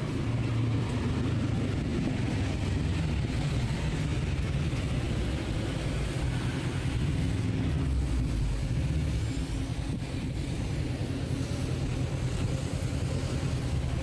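Street traffic: cars running past in a continuous low rumble.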